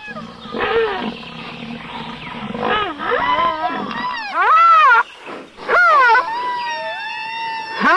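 Loud animal calls. Several short calls arch up and then fall in pitch, and a longer call near seven seconds is held and sags slightly in pitch.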